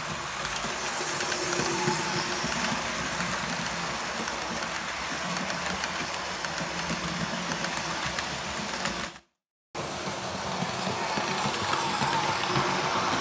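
Model train running along the track: the steady whir of its small electric motor with the rattle and clicking of wheels on rail. The sound fades out and breaks off for about half a second just after nine seconds in, then carries on.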